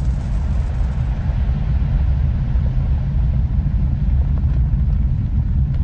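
Steady, loud low rumble of a rocket engine, as of a test ICBM lifting off, with a fainter hiss above it that thins out as it goes.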